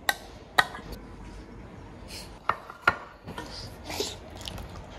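Cat eating and smacking its lips: about five sharp, wet mouth clicks, spaced irregularly.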